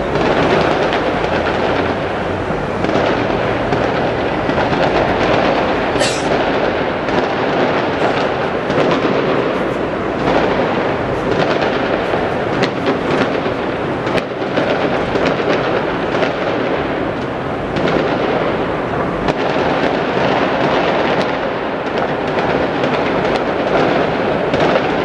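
Large fireworks display going off without pause: bangs and crackles overlap into a steady rumble. About six seconds in comes a brief high whistle falling in pitch.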